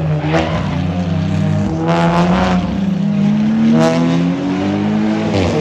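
Race cars lapping a circuit: one engine's pitch climbs steadily under acceleration while several other cars pass close by, their engine notes dropping in pitch as each one goes past.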